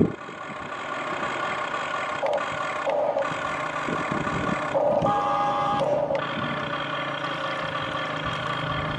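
Huina 1593 radio-controlled toy excavator running: a steady whine from its electric motors and gears, swelling and easing every second or so, with a brief higher tone about five seconds in.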